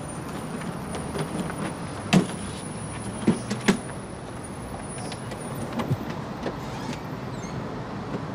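Steady low traffic-like rumble of a car park, with a few sharp clicks and knocks as a car's boot is unlocked and lifted open. A thin high whine stops a little past halfway.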